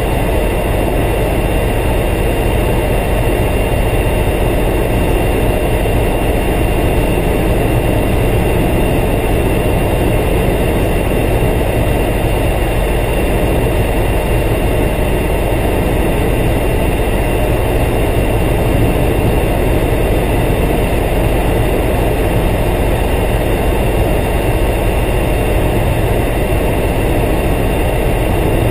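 Cabin noise of a Eurocopter AS365 N3 Dauphin helicopter in steady flight, heard from inside the cockpit: its twin turbine engines and rotor make a constant drone with several steady high-pitched whines on top.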